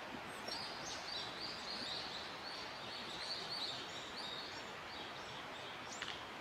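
A bird calling in a run of short, high chirps, about three a second, for around four seconds, over a steady outdoor hiss.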